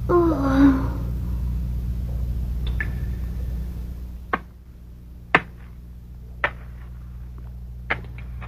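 A short vocal sound in the first second over a low drone, which fades out about four seconds in; after that, sharp knocks come about once a second, the unexplained noises echoing through the cave.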